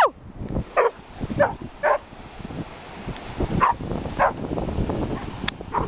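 Doberman barking at the surf: a string of about six short, excited barks that drop in pitch, over a steady hiss of wind and waves.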